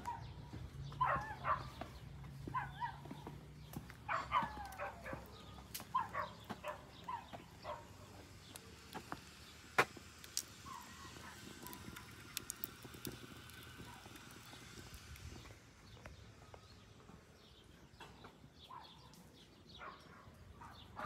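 A dog whining and yelping in short calls, mostly in the first seven seconds, with a single sharp click about ten seconds in.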